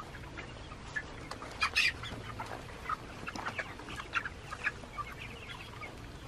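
A flock of Cornish cross meat chickens clucking and peeping, many short calls overlapping, with one louder call about two seconds in.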